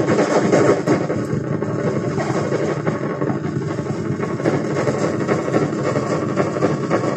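Korg Volca Bass synthesizer played through a DL 301 digital delay line: a loud, continuous, dense wash of overlapping echoes with rapid flickering pulses and no breaks.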